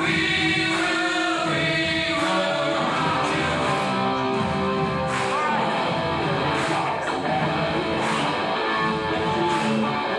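Rock song with singing and guitar playing in the room, heard through a GoPro Hero7 Black's built-in microphone.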